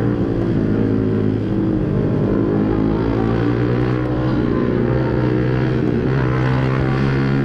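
Motorcycle engine running at speed, its pitch shifting up and down with the throttle, over steady road and wind noise.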